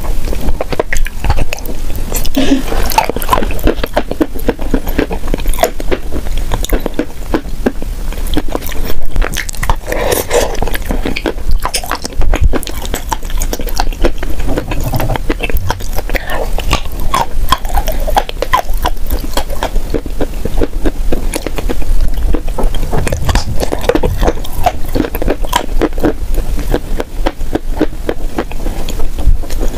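Close-miked eating: biting into and chewing a chocolate-coated snack, with a dense stream of small crackles, clicks and wet mouth sounds.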